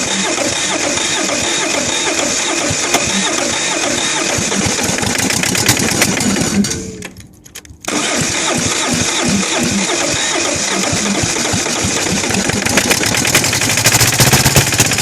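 Kohler KD425-2 two-cylinder diesel engine running roughly and knocking. About six and a half seconds in it dies away, and it comes back suddenly about a second later. It is starved of fuel and losing its prime.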